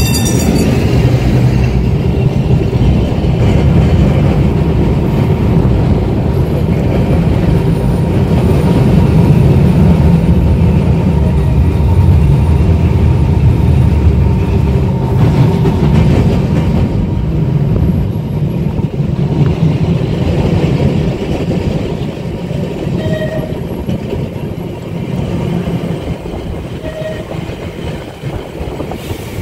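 1934 English Electric boat tram running on street track, heard from its open deck: a continuous low rumble of motors and steel wheels on the rails, getting quieter over the last third.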